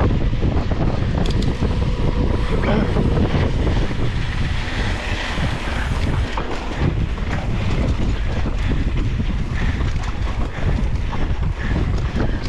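Heavy wind buffeting an action camera's microphone on a mountain bike at speed, with tyres running over sandy dirt and scattered knocks and rattles from the bike over bumps.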